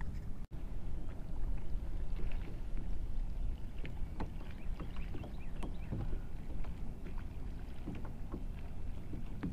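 Small waves lapping and slapping against a kayak's hull in scattered short splashes over a steady low rumble of wind and water.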